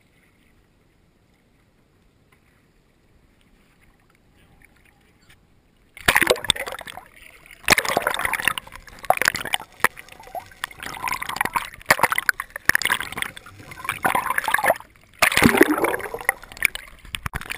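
Near silence, then about six seconds in a loud muffled gurgling and sloshing of seawater begins as the camera is submerged, with scattered sharp knocks.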